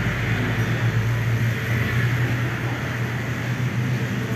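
Corded electric pet clipper buzzing steadily as it is run through a chow chow's thick coat.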